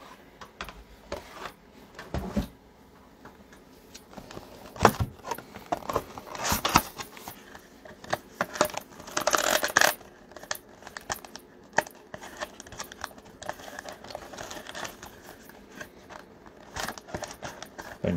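Hands opening a cardboard trading-card hobby box packed with foil-wrapped card packs: scattered clicks and taps and rustling of cardboard and foil, with a longer rustle about nine to ten seconds in.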